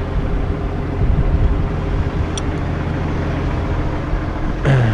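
Case IH Puma CVX tractor's diesel engine idling steadily, with a single sharp metallic click about halfway through.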